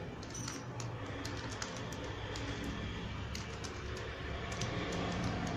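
A plastic Rubik's Cube being turned by hand, its layers making scattered light clicks as they are twisted.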